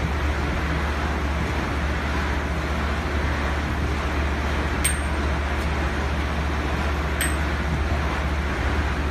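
Steady machinery din with a constant low hum, and two light metallic clinks about five and seven seconds in as steel mould rings are handled.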